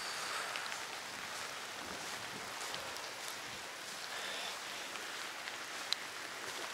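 Steady seaside hiss of waves and light rain, with a few faint ticks.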